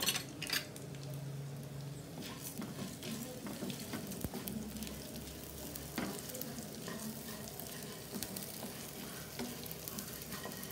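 Coriander seeds, chana dal and urad dal roasting in a spoonful of oil in a nonstick kadai, with a light sizzle. A spatula stirs and scrapes them, and many short clicks of seeds and dal rattle against the pan.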